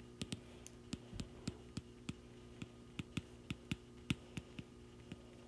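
Faint, irregular clicks of a stylus tapping and dragging on an iPad's glass screen while handwriting, over a steady low hum.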